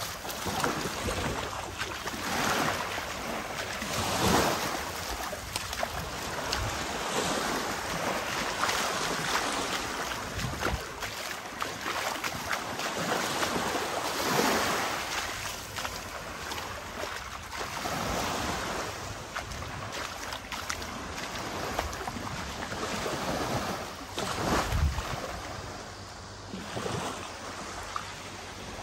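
Sea waves washing onto the shore in repeated surges every few seconds.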